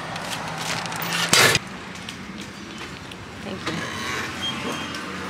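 A single loud thud about a second and a half in, over a low steady hum that stops with it; after that only faint background clicks.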